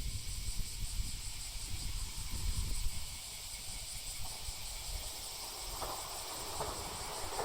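Outdoor trackside ambience: wind buffeting the microphone with a low rumble, under a steady high hiss of insects. An approaching 787 series electric train begins to be heard near the end, growing louder.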